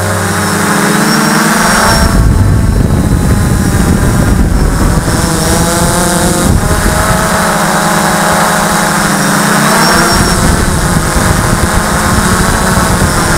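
DJI F450 quadcopter's motors and propellers buzzing, heard from the camera on board, their pitch rising and falling as the throttle changes. Wind rushes heavily on the microphone for a few seconds about two seconds in and again near the end.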